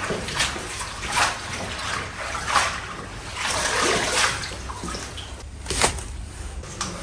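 Water sloshing and splashing in a sink as fresh pea shoots are washed by hand, with several splashes as dripping handfuls are lifted out into a bamboo basket.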